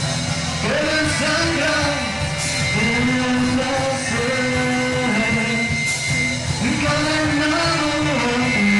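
A rock band playing live: a singer sings a melody, holding and bending notes, over electric guitars and drums.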